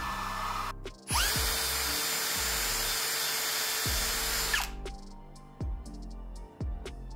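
Cordless drill spinning a small wire wheel brush against galvanized steel strip, brushing weld spots clean. It speeds up about a second in, runs steadily for about three and a half seconds, then winds down. Background music with a beat plays throughout and is left alone near the end.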